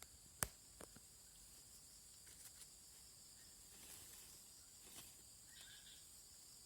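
Faint, steady high-pitched chirring of insects, with one sharp click about half a second in.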